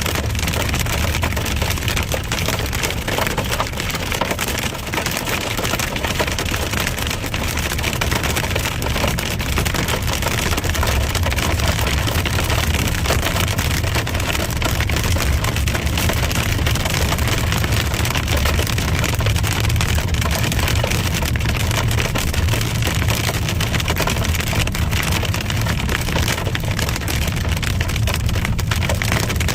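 Heavy rain pelting a car as it drives, a dense patter of many fine hits over a steady low road-and-engine rumble.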